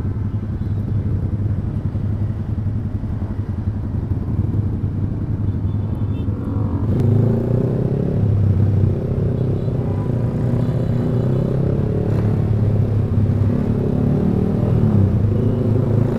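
Yamaha R15 V3's single-cylinder engine through a loud Proliner aftermarket exhaust, running under throttle while riding. The engine note climbs and gets louder about seven seconds in.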